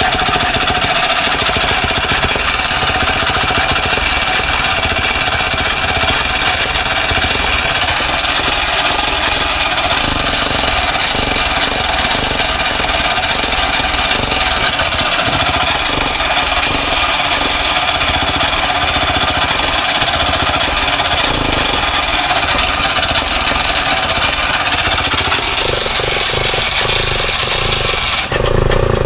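Trabant's air-cooled two-stroke twin engine running steadily, on its first run after more than 30 years laid up.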